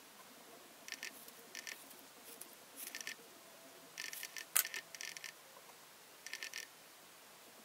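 Small hair-cutting scissors snipping strands of wig hair at the front hairline, in about seven short, crisp bursts of snips roughly a second apart, with one sharper single click about halfway through.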